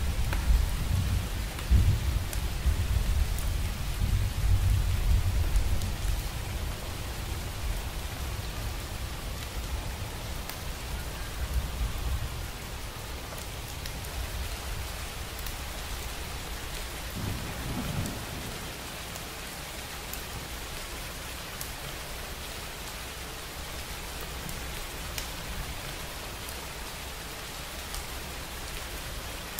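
Steady rain hissing, with scattered sharp drop ticks, under a long low roll of thunder that rumbles through the first dozen seconds and fades away. A shorter rumble follows about 17 seconds in.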